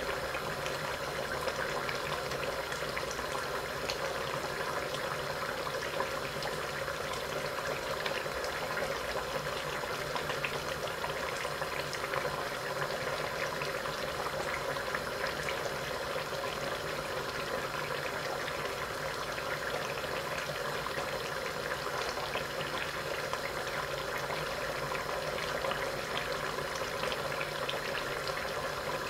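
Duck karahi cooking under the lid in a karahi on a gas burner: a steady bubbling and sizzling with fine crackles throughout.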